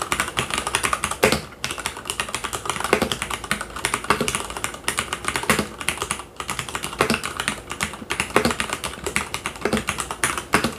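Rapid, continuous typing on a mechanical keyboard with red linear switches, keys clacking in quick irregular runs.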